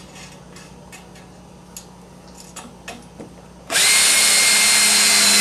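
A few faint clicks of screws and washers being handled, then about three and a half seconds in a cordless drill starts and runs at a steady speed, driving a 5/8 inch screw through a washer into a plywood mounting block.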